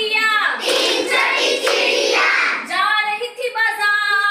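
A group of children chanting a counting rhyme in unison in a sing-song voice, with a woman's voice leading them.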